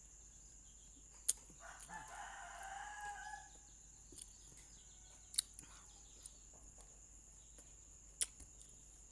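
A rooster crowing once, faintly, about two seconds in. Three sharp clicks are spread through the rest.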